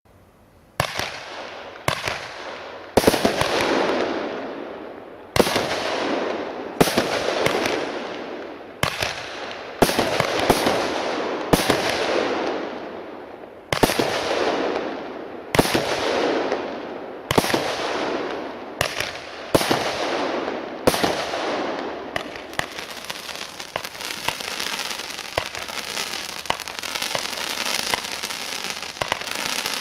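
A compound firework battery firing shot after shot. A sharp bang comes roughly every second, each followed by a fading crackle. After about 22 seconds the shots give way to a dense, continuous crackling.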